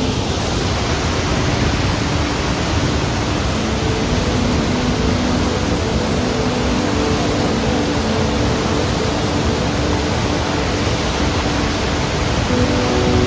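Lundbreck Falls, a waterfall on the Crowsnest River, rushing steadily: a loud, even hiss of falling water with no breaks.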